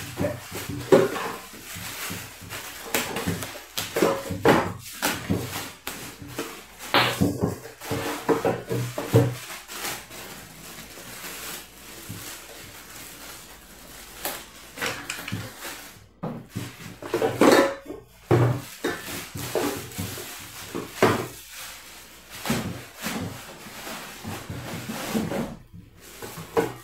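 Plastic packaging film crinkling and rustling in irregular bursts as it is pulled off a stand mixer and its stainless steel bowl, with occasional bumps of the mixer being handled on the table.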